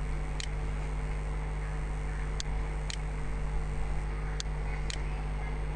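Steady low electrical hum with a computer mouse clicked five times; after the first click the rest come in pairs about half a second apart.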